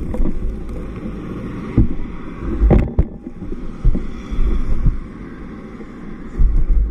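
Road traffic passing on a city street, with low rumbling gusts of wind on the microphone and one sharp knock about two and a half seconds in.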